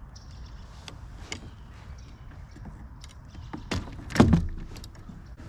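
Scattered clicks and knocks of hands and tackle against a plastic fishing kayak as a just-caught largemouth bass is handled and unhooked, with a louder knock and clatter about four seconds in.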